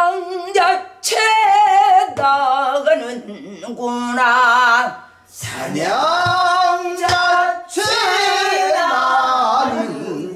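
Korean danga sung in pansori style, a woman's voice holding long notes with wide vibrato, with a few strokes on a buk barrel drum. About halfway through, a second phrase is sung back, the class repeating after the teacher.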